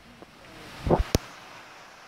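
Two short knocks and a sharp click about a second in, like handling noise on the recording phone, over a low steady hiss of rain and running floodwater.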